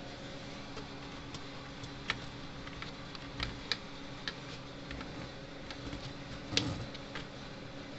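Irregular light clicks and taps of fingers handling wires and parts inside an open plastic fence charger case, with a louder knock about six and a half seconds in, over a faint steady hum.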